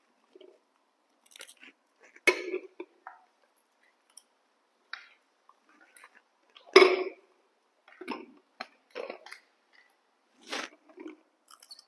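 Young macaques chewing and crunching crispy fried snack rings. There are scattered small bites and crunches, with two louder sounds about two and seven seconds in.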